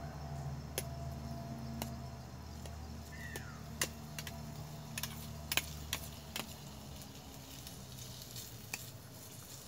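Onion frying in oil in a stainless-steel frying pan over a small wood fire: a soft steady sizzle as it is stirred, with scattered sharp clicks of the utensil against the pan.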